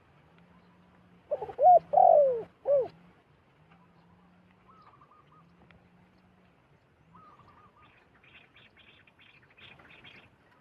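Zebra doves calling: a loud group of short, arching cooing notes between about one and a half and three seconds in, then two faint quick trilled phrases. Faint repeated low coos run underneath, and a rapid series of high chirps comes near the end.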